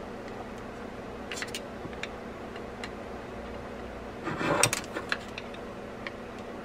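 Micro screwdriver ticking and scraping on the small screws that hold the slammer drag cover on a Penn Spinfisher V 6500 spool. There are a few faint ticks, then a short burst of scraping and clicks about four and a half seconds in, over a low steady hum.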